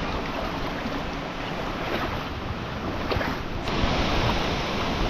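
Steady rush of flowing creek water, with wind buffeting the microphone.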